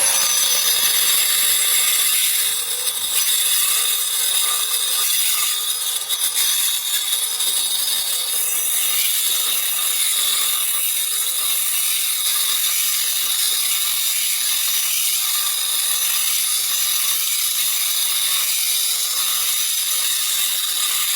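Angle grinder with a diamond cutting disc running and cutting steadily: a constant high whine over a harsh grinding hiss.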